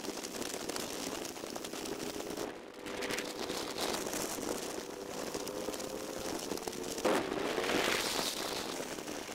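Wind buffeting and crackling on the microphone of a moving motorcycle, with the Harley-Davidson Road Glide's V-twin engine running faintly underneath. The noise dips briefly a few seconds in and there is a louder burst of crackle about seven seconds in.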